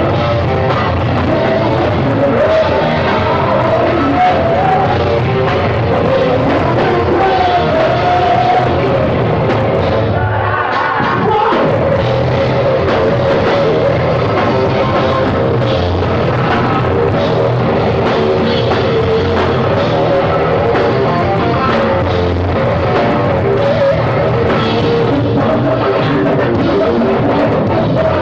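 Rock band playing live: singing over guitars and a drum kit, loud and dense throughout, with a short break in the playing about ten seconds in.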